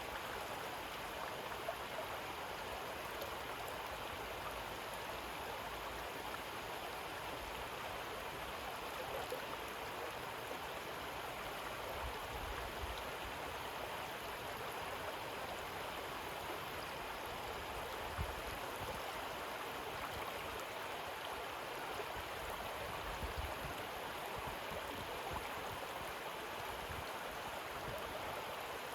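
Shallow river water running over pebbles, a steady babbling rush with no breaks.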